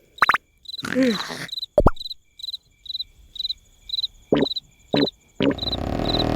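Cartoon soundtrack from a snoring scene: short, high cricket chirps, about two a second, under brief comic vocal noises and snorts. Near the end a long, loud, rasping snore begins.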